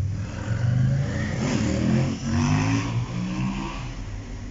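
Diesel train engine revving up under power, its pitch rising and falling, loudest in the middle and easing off near the end.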